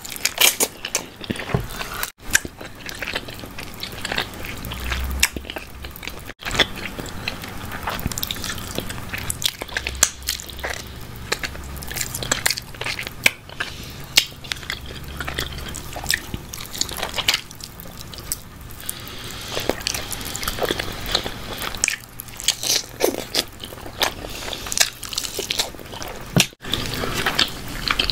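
Close-miked biting and chewing of a barbecue-sauced chicken drumstick, with many short clicks and smacks of the mouth and sticky meat.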